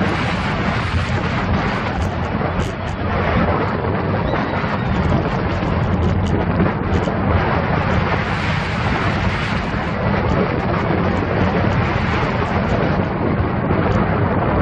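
Vekoma steel roller coaster train running along the track, heard from a camera on the car: a steady, loud rumble of wheels on the rails mixed with wind buffeting the microphone.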